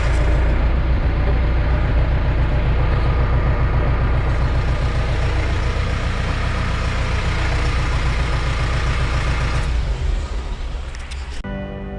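Kukje 5015N tractor's diesel engine running steadily, then fading out about ten seconds in. Guitar music starts near the end.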